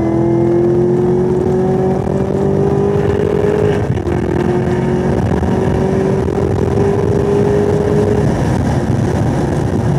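A car's engine heard from inside the cabin, accelerating hard down a straight. The revs climb steadily in third gear, drop with a quick upshift to fourth about four seconds in, then climb again toward redline. The engine note falls away about eight seconds in as the throttle is lifted. Heavy wind and road noise run underneath.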